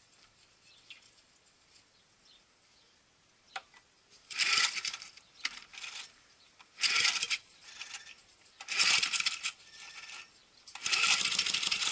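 Four pulls on the recoil starter of a freshly primed 3.5 hp, 148cc Briggs & Stratton push mower engine, each a short whirring rattle of rope and starter, about two seconds apart. The engine does not catch, and a single click comes shortly before the first pull.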